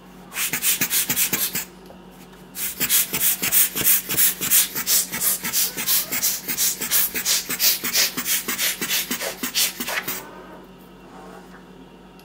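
Rapid, even scraping strokes with a kitchen knife, about four a second: a short run near the start, then a longer run of some seven seconds.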